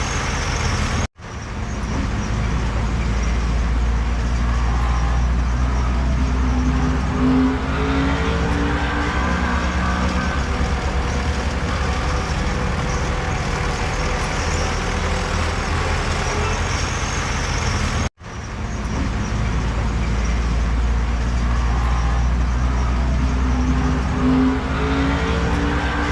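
Heavy diesel earthmoving machinery running at a steady, loud rumble, its engine note climbing briefly twice as it works under load. The sound cuts out for an instant twice.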